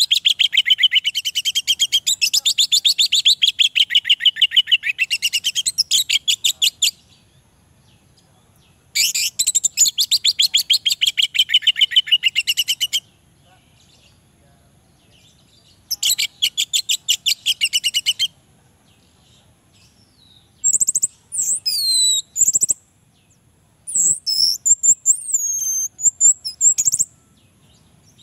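Orange-headed thrush singing: three long, fast trills of rapidly repeated high notes with short pauses between, then shorter whistled phrases that slide up and down in pitch near the end.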